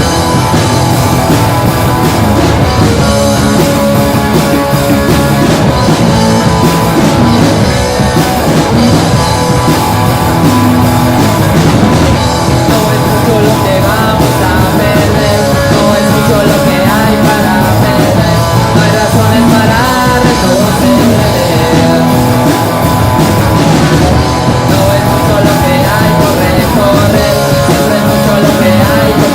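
Live rock band playing loud and steady through the opening of a song: two guitars, bass guitar and drum kit.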